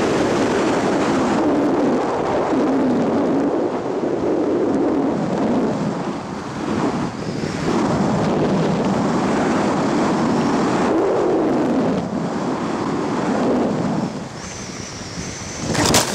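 Air rushing over the camera microphone of a skydiver flying under canopy. It wavers and eases off for the last couple of seconds, when a thin high tone comes in. Right at the end there is a sudden loud burst and the recording cuts off: the night-landing crash.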